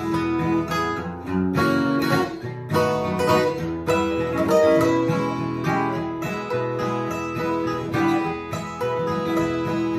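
A steel-string dreadnought acoustic guitar played solo, picked quickly with a run of single notes mixed with strummed chords.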